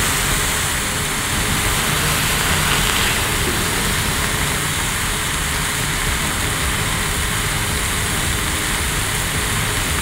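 Beef burger patties sizzling in oil on a hot grill plate: a steady hiss and crackle.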